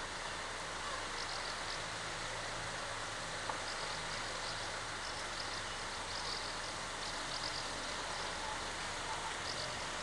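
Outdoor town ambience: a steady low rumble and hiss of distant traffic, with faint high bird chirps now and then.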